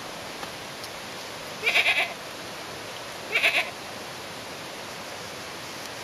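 Goat bleating twice, about a second and a half apart, each a short wavering bleat about half a second long.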